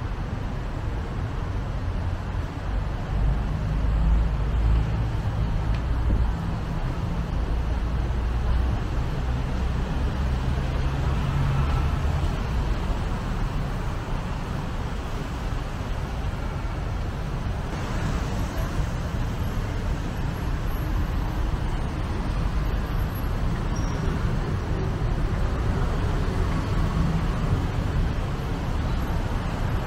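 Busy city road traffic, a steady mix of car and bus engines and tyre noise. A heavy vehicle's low engine rumble stands out for several seconds, starting about three seconds in.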